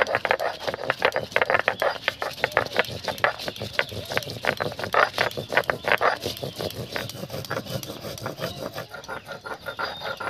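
Dry red chillies being crushed and ground on a flat stone slab with a stone roller (shil-nora): a rapid run of crackling, scraping strokes of stone on stone. The strokes thin out in the last few seconds.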